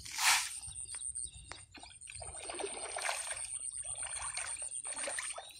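Murrel (snakehead) fish splashing and churning at the surface of a netted pond, with one sharp splash just after the start and a busier run of irregular small splashes later on.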